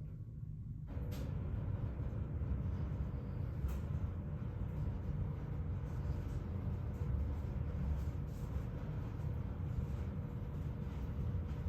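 Wind buffeting the microphone: a steady, gusting low rumble that starts about a second in.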